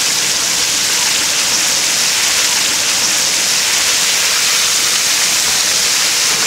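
Battered pieces deep-frying in a large vat of hot oil: a loud, steady sizzling hiss.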